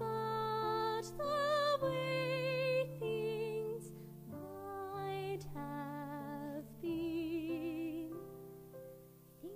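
A female soprano singing held notes with wide vibrato over piano accompaniment, pausing briefly about four seconds in before taking up the line again, and growing quieter near the end.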